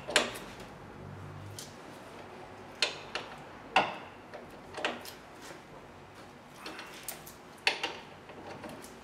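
Irregular sharp metallic clicks and clinks of a breaker bar and socket on the brake caliper bracket bolts as they are tightened.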